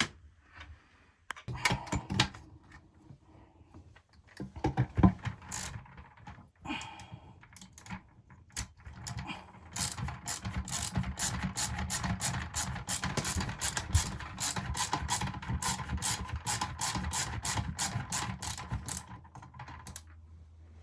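A hand ratchet clicking while the toilet seat's mounting bolts are taken off: scattered clicks and knocks at first, then a steady run of rapid clicks, about five a second, from about ten seconds in until near the end.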